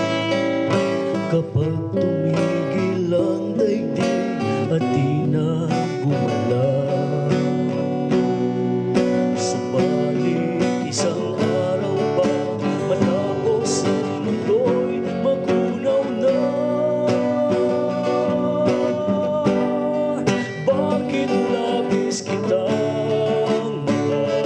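Music led by a strummed acoustic guitar, playing steadily without a break.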